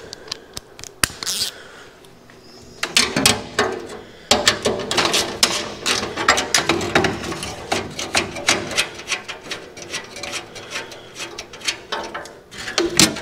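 Hand ratchet wrench clicking rapidly while loosening bolts. It starts about three seconds in and runs in uneven spells, with a louder metallic clank near the end.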